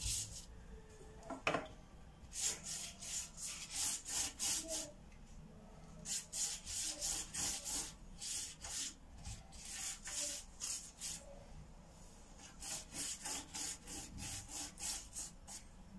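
A pastry brush swept back and forth over a sheet of phyllo dough, spreading melted butter, in runs of quick strokes at about three a second with short pauses between.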